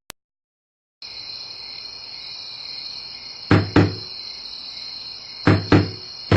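Horror sound-effect of crickets chirring steadily at night, starting about a second in, with two pairs of short thumps about two seconds apart.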